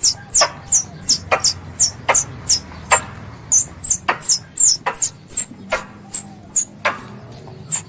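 Squirrel calls used as a lure: a rapid series of sharp, high chips, about three a second, each a short whistle dropping in pitch.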